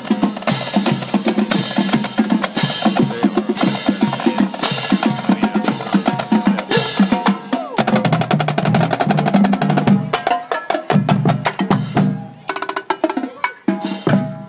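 Marching band drumline playing a street cadence: rapid snare drum strokes over bass drum hits. The strokes thin out and grow quieter over the last few seconds.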